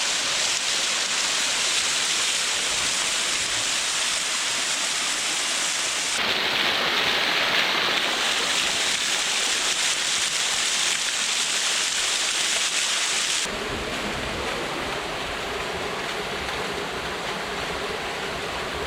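Waterfall: a steady rush of falling water. Its tone shifts abruptly twice, about six seconds in and again about thirteen seconds in, when it turns duller and deeper.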